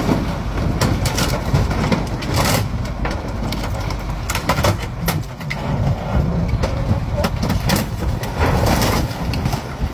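Heavy vehicles running: a steady low engine and road rumble, with scattered short clicks and knocks.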